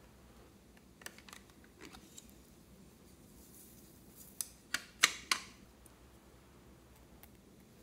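Sharp little clicks and taps of small plastic containers against a glass dish as glitter is tipped out onto slime, with a soft hiss of pouring glitter just before them. A few light clicks early, then a quick cluster of louder clicks past the middle.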